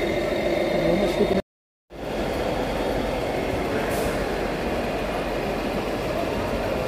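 Steady background din, with no single clear source standing out, broken by a brief dropout to silence about one and a half seconds in.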